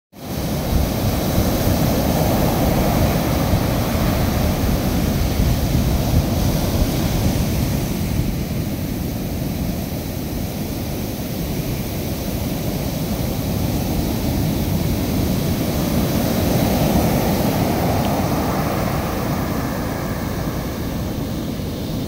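Large ocean surf breaking and washing up a sandy beach: a continuous rushing roar that swells and eases as successive waves come in.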